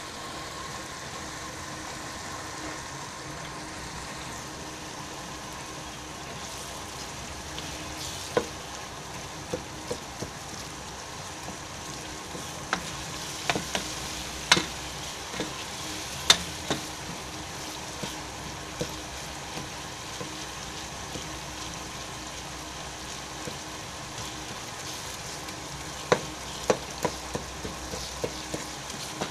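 Onions, tomatoes and carrots sizzling in hot oil in a pot, with a spoon stirring them. Sharp knocks of the spoon against the pot come in scattered groups, mostly around the middle and near the end.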